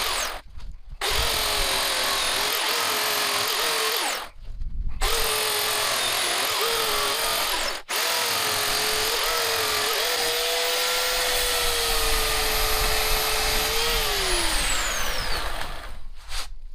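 Bauer corded electric chainsaw cutting through Bradford pear, its motor whine wavering under load. The trigger is released twice for about half a second. Later it runs steady and free, then winds down with a falling whine near the end.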